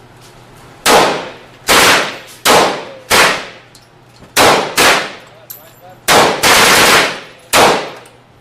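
Firearm shots at a shooting range: about nine single gunshots at uneven intervals, each a sharp crack with a ringing tail, two of them running together near the end.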